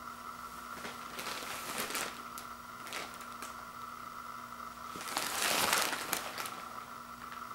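Plastic wrap on a pack of toilet paper rolls crinkling as it is handled and turned over. It comes in short bursts, with the longest and loudest crinkling about five to six seconds in.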